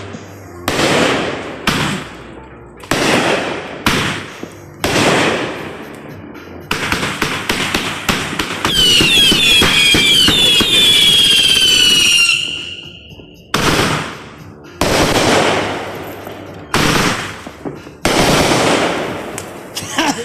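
Consumer aerial fireworks going off in a string of sharp bangs about a second apart. Midway comes several seconds of dense crackling with a few falling whistles, then single bangs resume.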